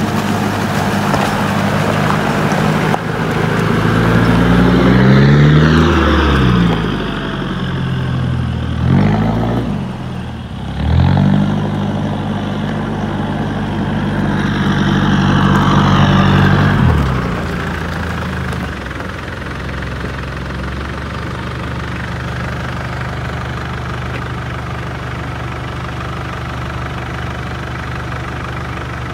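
Mitsubishi Pajero's turbo-diesel engine under load, revs rising and dropping several times through the first half as the gears change, then running steadily at lower revs from about eighteen seconds in.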